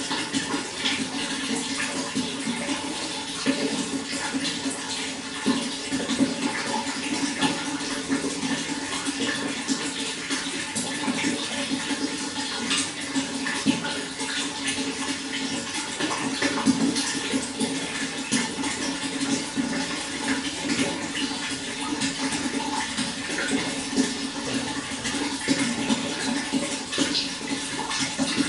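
Running water flowing steadily: a continuous rush with many small splashes and drips scattered through it.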